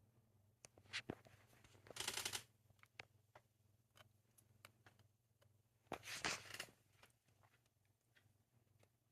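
Small 3D-printed plastic Benchy sliding on a glass screen protector: two short scraping rustles, about 2 and 6 seconds in, among scattered light ticks over a faint low hum.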